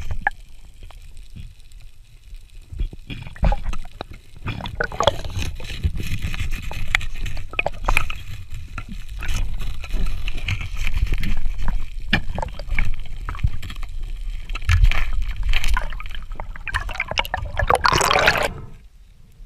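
Water gurgling and sloshing, with many irregular clicks and knocks over a low rumble. A louder rush of water comes near the end, then stops abruptly.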